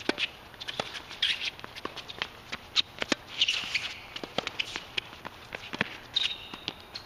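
Tennis rally on a hard court: irregular sharp pops of racket strikes and ball bounces, mixed with sneakers scuffing on the court surface and a short squeak near the end.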